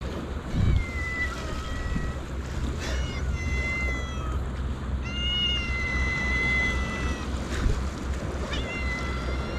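A cat meowing four times in long, drawn-out calls, the third the longest, begging an angler for fish, over a steady low rumble.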